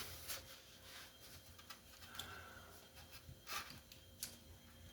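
Quiet room with a few faint, separate clicks and taps, about four spread over the few seconds: small handling noises.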